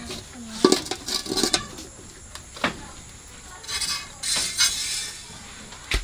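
Cow being milked by hand into a metal pail: a few knocks and clinks against the pail in the first half, then jets of milk hissing into the pail about four seconds in.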